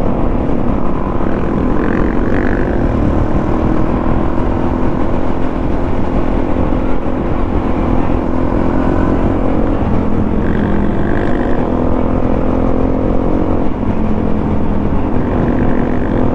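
Suzuki DRZ400 supermoto's single-cylinder four-stroke engine running under way, its pitch climbing gradually, dropping about ten seconds in and changing again near the end, over heavy wind rumble on the microphone.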